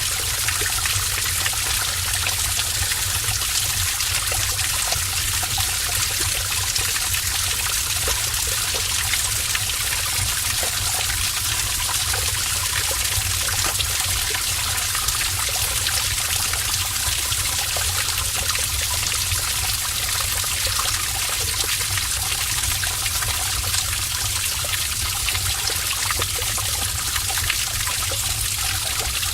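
Heavy stream of water splashing and pouring in a cave, a steady dense rush with a low rumble underneath.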